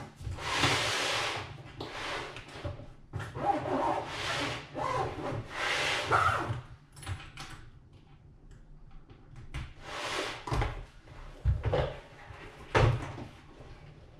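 Rustling and shuffling of someone handling things, then three sharp knocks in the last few seconds.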